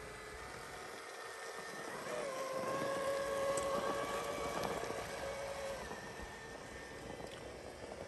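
Electric drive motor and gearbox of a Crossrc AT6 6x6 RC rock crawler whining as it crawls over rock, rising in level about two seconds in and easing off around six seconds.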